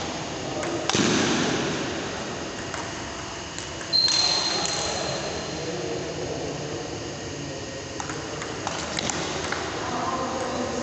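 Table tennis play in a large echoing hall: the ball clicking off paddles and tables in scattered sharp knocks. The loudest knock, about four seconds in, is followed by a brief high-pitched ring.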